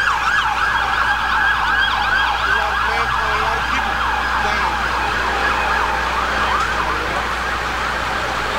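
Ambulance siren in a fast yelp, its wail sweeping up and down several times a second and fading somewhat near the end.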